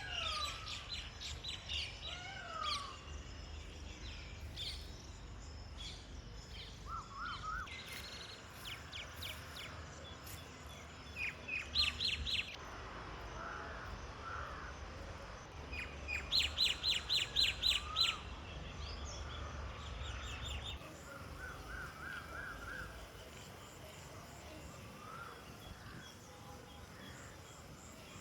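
Several wild birds calling and singing, a mix of chirps and whistled notes. Two loud runs of quick, repeated high notes stand out, one about twelve seconds in and another lasting about two seconds a little later.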